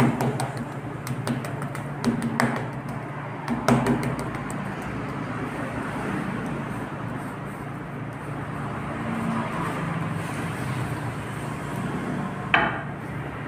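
Rolling pin rolling out laminated puff pastry dough on a granite counter, with a few sharp knocks in the first four seconds and one more near the end, over a steady background hum.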